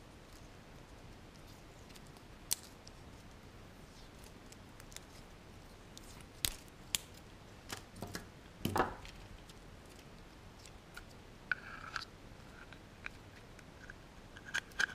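Small plastic parts, wires and electrical tape being handled: scattered sharp clicks of plastic pieces, a brief clatter about nine seconds in, and short squeaks near twelve seconds, over quiet room tone.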